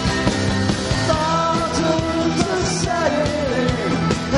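Live Irish folk-punk band playing an instrumental passage without vocals: a bending lead melody over bass and a steady drum beat.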